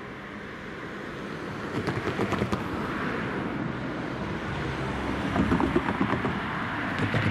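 Road traffic: cars driving over an open railway level crossing, with tyre noise that swells and fades and a few sharp knocks as wheels cross the rails.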